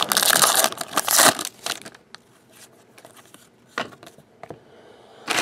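Trading-card pack wrapper crinkling and tearing for about the first second and a half, then scattered soft clicks of cards being handled, with another brief loud crinkle just before the end.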